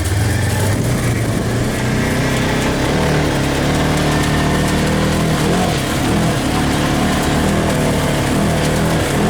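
Polaris RZR side-by-side's engine running under way, its note rising and falling with the throttle.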